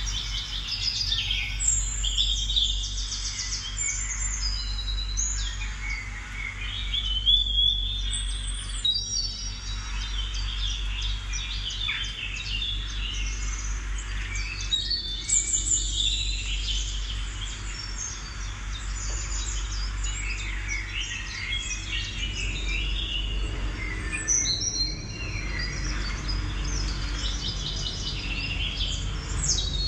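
Many birds chirping and singing together, with overlapping short calls and trills throughout, over a steady low hum.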